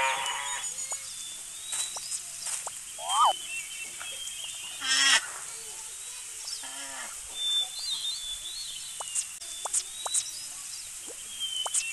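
Assorted animal-call sound effects over a bed of bird chirps: short pitched calls every second or two, the loudest about halfway through, with light chirping between them.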